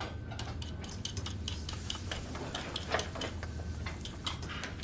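Vegetable peeler scraping the skin off a potato in quick, uneven strokes: a series of short scratchy ticks.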